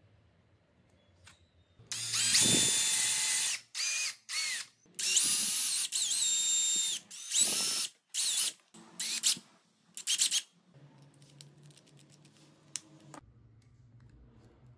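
Cordless drill drilling a small plastic part in a run of short trigger pulls, about eight bursts, each whining up in pitch as the motor spins up. The drilling stops about ten seconds in.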